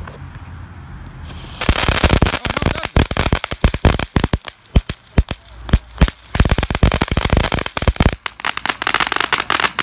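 A small consumer firework, a junior cuckoo, going off in a dense, rapid crackle of many sharp little pops. It starts about one and a half seconds in and keeps crackling with a couple of short lulls.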